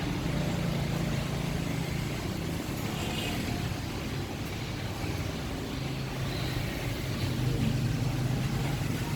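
An engine running steadily with a low hum that swells slightly toward the end.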